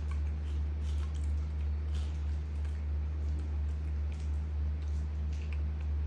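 A macaque scraping and tapping a plastic spoon in a metal bowl, in scattered faint clicks, over a steady low hum.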